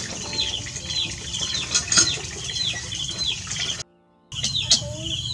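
Bird chirping over and over: short, high, falling chirps about twice a second, with a few sharp clicks. The sound drops out for about half a second near the end.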